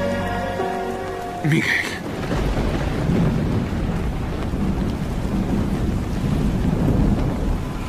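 Heavy rain falling with a low rolling rumble of thunder, which swells in from about two seconds in.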